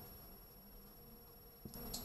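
Faint scratching of a fountain pen nib writing on paper, with a small tap and a brief scratch near the end.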